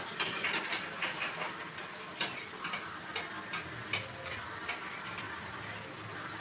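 Paratha frying in hot oil in a metal kadai, a steady sizzle, with irregular sharp clicks of metal tongs and a spatula against the pan.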